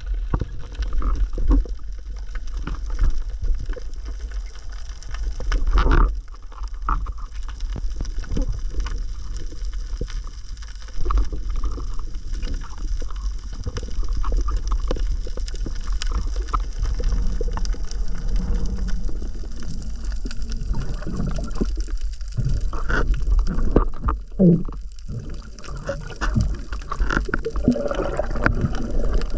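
Underwater sound heard through an action camera's housing: a constant low rumble of water movement with many scattered clicks and knocks, a few of them louder.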